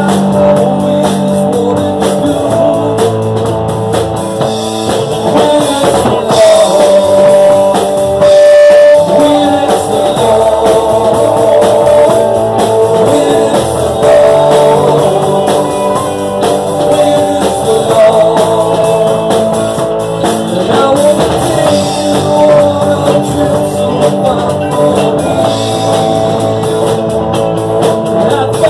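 Live band playing a blues-rock song: guitar and drum kit with a male singer's vocals, loud and continuous.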